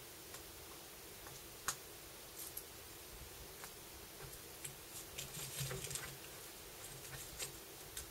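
Faint small clicks and crinkling of hands working a laptop screen's ribbon-cable connector and handling the new LCD panel on its plastic packaging. There is a sharper click about a second and a half in, and a busier run of crackling a little past the middle.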